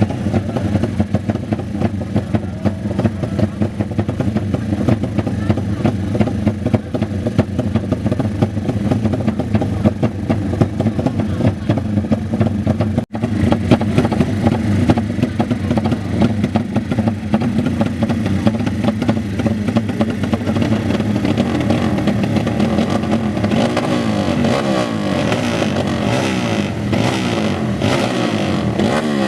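Motorcycle engines running loudly, with the engine pitch rising and falling as they are revved repeatedly in the later part.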